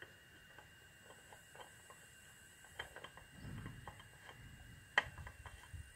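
Faint handling noise of a new spin-on oil filter being fitted by hand: scattered small clicks and light taps, a sharper click about five seconds in, and brief low rumbling.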